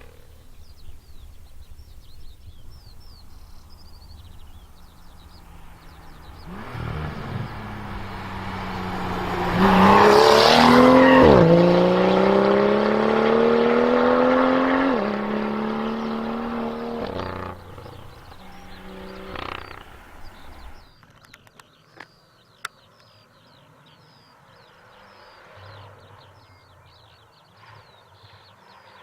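BMW M2 with an Fi aftermarket exhaust accelerating hard: its turbocharged straight-six climbs in pitch, drops once at an upshift and climbs again, then eases off and fades. A short rev follows, then only a faint background.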